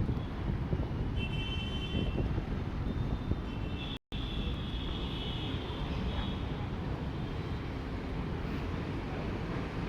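Steady low outdoor background rumble, with faint high-pitched chirps coming and going; the sound drops out for a split second about four seconds in.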